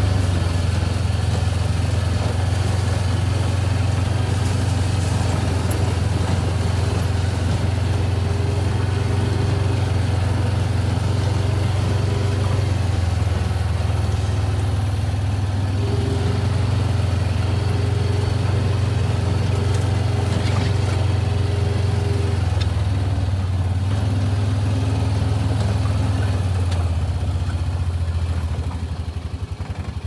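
Bobcat T770 compact track loader's diesel engine running at a steady speed, easing off slightly near the end.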